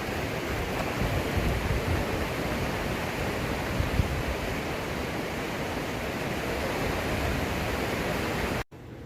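Steady rushing of a fast-flowing creek, cut off suddenly near the end.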